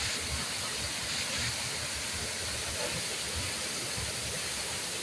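Waterfall's water pouring steadily into its plunge pool, an even rushing noise with no change.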